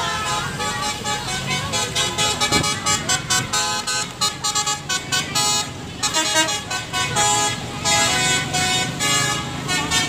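Basuri 'telolet' musical air horn on an Adiputro Jetbus 3+ coach playing a fast melody of short stepping notes, starting about two and a half seconds in.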